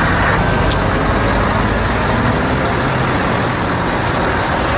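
Diesel engine of a Scania R-series tractor unit running as it pulls a refrigerated semi-trailer at low speed, over steady outdoor traffic noise.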